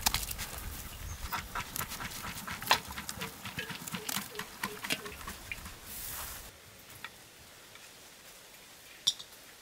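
Many sharp clicks and scrapes of a ladle working biryani rice in a clay pot. The sound stops about two-thirds of the way through, leaving a quieter background with a single click near the end.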